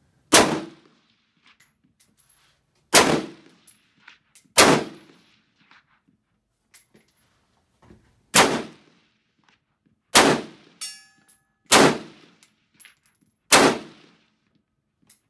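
AR-15 rifle fired semi-automatically, seven single shots at uneven spacing of about one and a half to four seconds. Fainter clicks and knocks fall between the shots.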